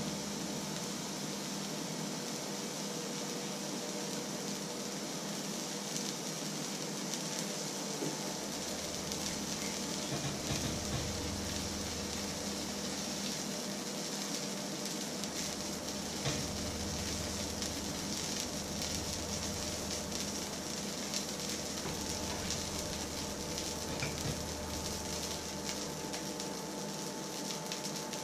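Oil heating in a black steel pan on the hob, sizzling with scattered crackles over a steady hiss and faint hum; the crackling picks up after about eight seconds.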